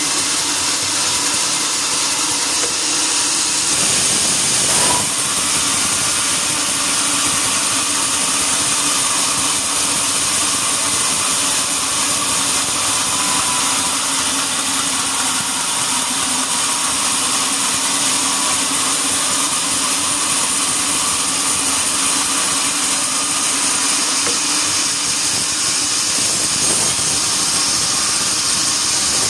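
Sawmill saw running steadily, a continuous mechanical drone with a strong hiss, and a brief knock about five seconds in.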